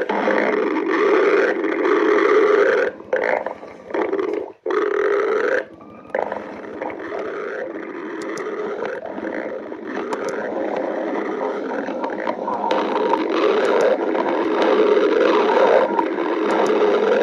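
Stomach growling: long, drawn-out gurgles that break off briefly several times between about three and six seconds in, then run on unbroken.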